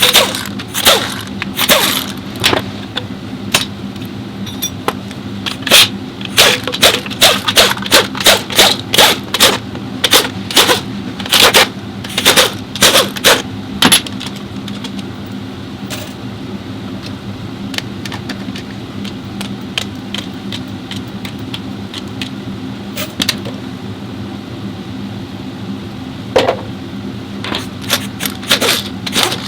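Metal tools and parts clinking and clanking in irregular strokes, thickest in a run of about two a second through the middle and again near the end, over a steady low mechanical hum.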